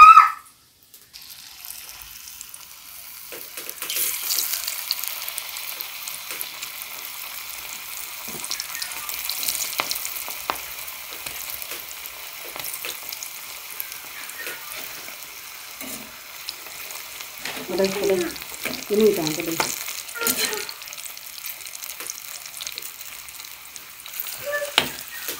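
Thin cassava slices sizzling in hot oil in a metal wok, a steady hiss that swells a few seconds in. A slotted spoon stirs the slices, with occasional light scrapes and clinks against the pan.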